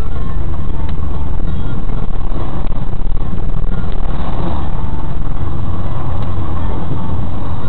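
Loud, steady driving noise heard from inside a moving car: engine and tyres on a wet road, picked up by the dashcam's microphone.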